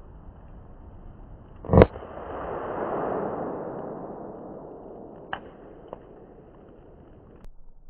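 An M-98 firecracker going off with a single sharp bang about two seconds in. A swelling rush of noise follows and fades away over the next several seconds, and two small ticks come later.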